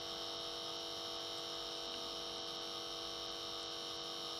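Steady electrical hum made up of several constant tones, with a higher whine above them, unchanging throughout.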